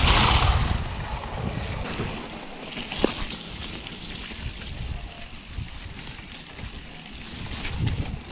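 Wind rumbling on the microphone and mountain bike tyres rolling over a wet, rough trail, with a loud hiss of spray as the bike rolls through water at the start and one sharp knock about three seconds in.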